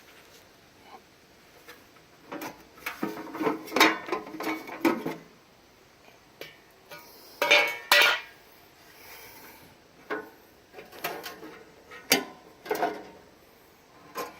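Metal clanking and rattling as tools and sheet-metal parts of a pellet grill are handled and knocked together. It comes in short irregular spells of sharp clinks and knocks, with quiet gaps between them.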